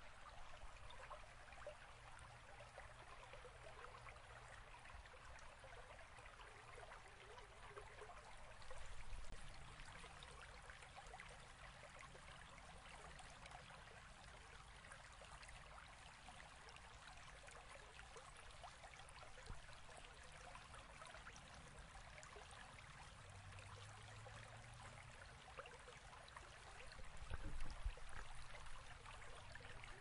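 A shallow stream rushing over rocks and a small cascade: a steady, faint rush of water. Two brief low rumbles come about nine seconds in and near the end.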